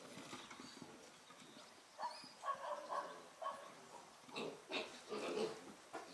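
Pigs calling in short calls, one group about two seconds in and another around four to five seconds in.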